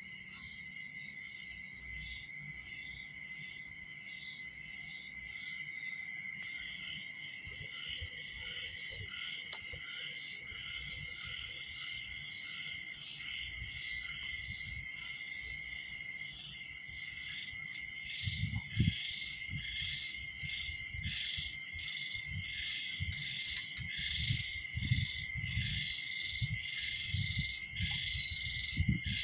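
Night chorus of calling animals: a steady high trill with regularly repeated chirps above it. Low thumps and rumbles join from about two-thirds of the way in.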